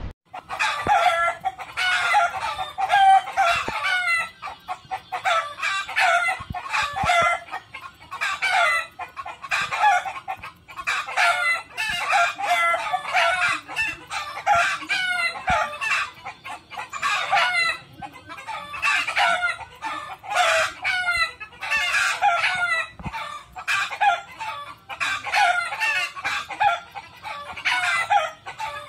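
Several domestic roosters crowing and hens clucking, their calls following one another with only short breaks.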